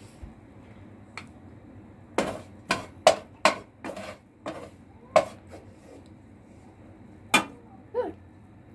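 Wooden spatula knocking and scraping against a frying pan and a small bowl as scrambled egg is scooped out: a string of short, sharp clacks that begins about two seconds in, with a pause in the middle.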